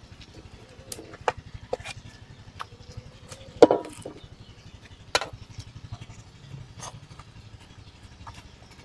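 Metal spoon scraping and knocking against aluminium woks as coconut cream is scraped from one pan into another: scattered sharp clicks and knocks, the loudest about three and a half seconds in with a short ring. A low rumble runs underneath.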